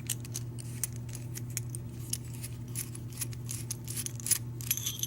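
Small metal clicks and clinks of a Schlage deadbolt's parts being handled as it is taken apart, irregular and scattered, over a steady low hum.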